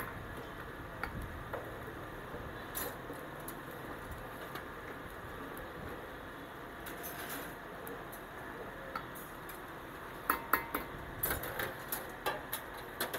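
A long metal ladle scraping and knocking against a large steel cooking pot as a thick minced-meat mixture is stirred in butter. There are scattered clinks, then a quick run of louder clanks near the end.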